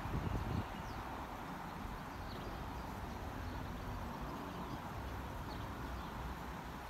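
Outdoor ambience: a steady low rumble and hiss, a brief gust of wind on the microphone in the first half-second, and a few faint bird chirps.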